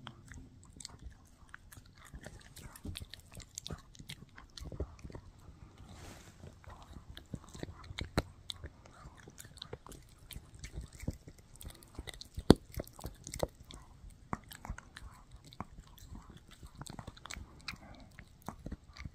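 Shih Tzu chewing a No-Hide bully stick: irregular gnawing with short crunching and clicking bites, one sharp bite about twelve seconds in the loudest.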